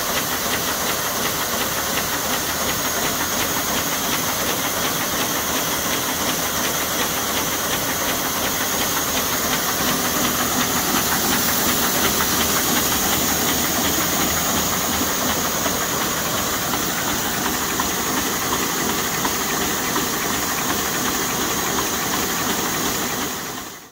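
Buhrs BB700 envelope inserter running under test: a steady, dense mechanical whir and rapid fine clatter from its feeders and transport, with a strong high hiss. The sound fades out near the end.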